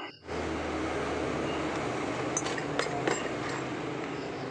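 Steady background hum with three light clinks in quick succession about halfway through.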